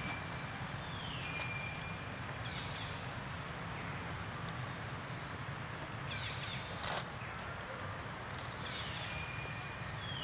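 Repeated high whistled animal calls, each falling quickly in pitch and then holding a short steady note, come every second or so in the first few seconds and again near the end, over a steady low hum.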